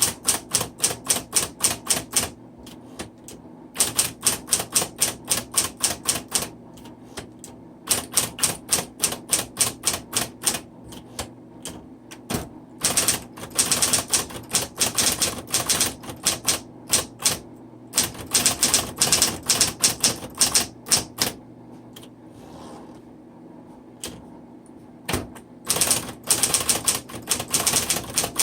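1960s Smith Corona Coronet Electric 10 typewriter being typed on: quick runs of sharp, motor-driven type strikes, several a second, broken by short pauses. A steady low hum from a room heater runs underneath.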